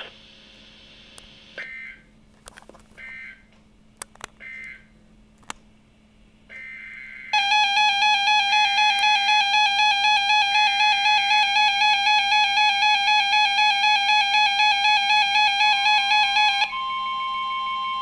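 NOAA weather alert radio: a few short two-tone data warbles, then about seven seconds in the radio's loud multi-tone alert alarm starts, pulsing about three times a second. Near the end it changes to a single steady warning tone at a lower level, signalling a new warning coming in.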